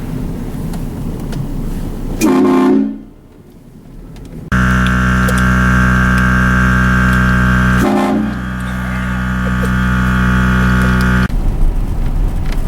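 Aftermarket train air horn blasting: a short blast about two seconds in, then a long, loud multi-tone chord lasting about seven seconds with a brief break partway through. A low vehicle rumble runs underneath before and after the blasts.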